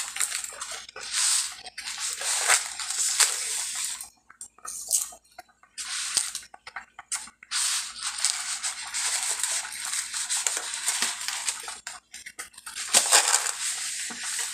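Dry spaghetti rattling and scraping against its cardboard box as a handful is worked out of it over a pot, in irregular bursts with short pauses.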